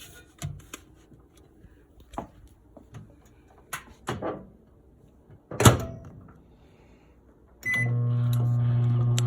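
Microwave oven: a few light clicks and knocks, then one loud knock about two-thirds through. Near the end there is a short beep and the oven starts running with a steady hum.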